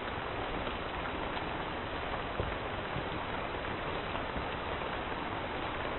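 A lit firework on concrete fizzing with a steady sputtering hiss, with a few faint crackles.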